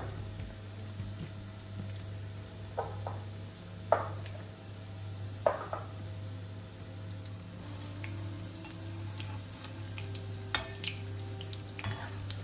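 Batter for onion pakoras frying in hot oil in a pan, with a utensil clinking against the pan about five times, over a steady low hum.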